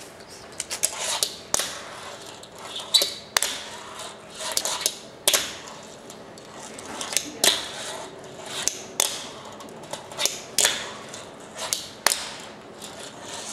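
Fingerboard doing flatground tricks on a polished stone tabletop: sharp plastic clacks as the little deck pops and lands, about one every second or so and sometimes two in quick succession, with the faint rattle of its small wheels rolling in between.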